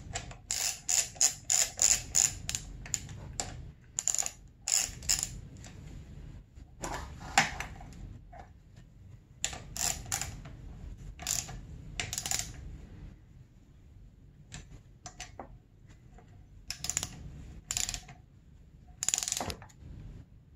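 Hand socket ratchet clicking as the fork's triple-clamp pinch bolts are run down: a quick run of about ten clicks in the first few seconds, then shorter bursts of a few clicks each.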